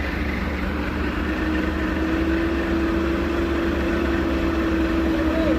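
A heavy vehicle's diesel engine runs steadily on the climb, with a steady whine held over it.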